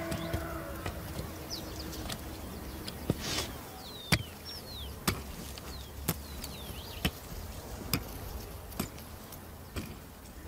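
A hand hoe striking dry clay soil, one sharp chopping knock about every second, with a few short high chirps in between.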